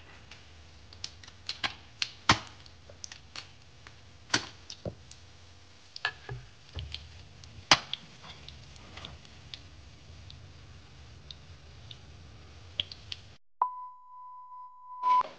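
Irregular sharp pops and crackles of food cooking on a stovetop, with tilapia frying in hot oil, over a low hum. Near the end the crackling cuts off and a steady 1 kHz test tone sounds for about a second and a half.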